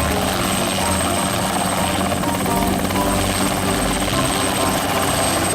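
Helicopter rotor and engine running steadily, a dense whirring noise that stops abruptly at the end.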